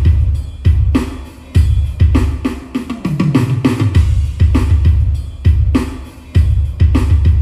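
Music with a heavy, booming kick drum about every 0.8 seconds and snare hits, with a deep bass note that slides downward about three seconds in.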